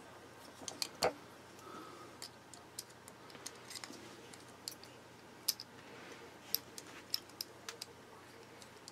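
Scattered small metallic clicks and ticks of a precision screwdriver working at the pocket-clip screws of a folding knife, the bit tapping and seating in the screw heads as the knife is handled. The sharpest click comes about a second in.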